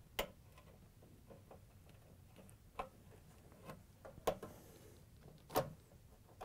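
Faint, scattered metallic clicks and taps of a flathead screwdriver working a tri-ring retaining clip off the metal axle of a dryer drum support roller, with a couple of sharper clicks in the second half.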